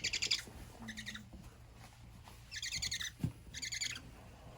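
Great horned owlet giving four short, raspy, rapidly pulsed calls.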